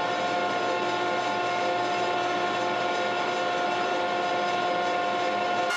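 Jointer running steadily at full speed, a constant machine hum with a whine over hiss, just after spinning up to speed.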